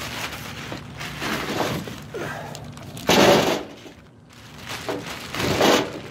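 Plastic bags full of golf balls being handled: the plastic crinkles and rustles in uneven stretches, loudest about three seconds in.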